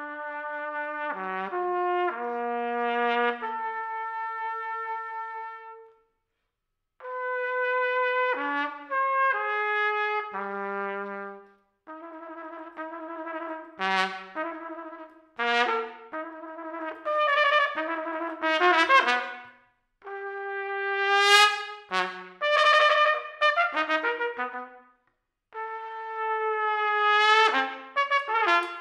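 Unaccompanied solo trumpet playing phrases of runs and held notes with short breaths between them. The phrases grow louder and reach higher notes in the second half.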